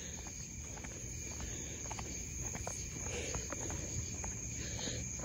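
Crickets trilling in one steady high-pitched tone, with soft footsteps on a paved road.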